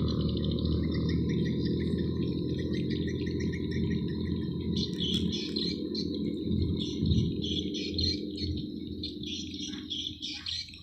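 A low, steady drone, typical of a fast boat's engines, fades away near the end. Birds chirp over it from about halfway in, and they grow more prominent as the drone dies down.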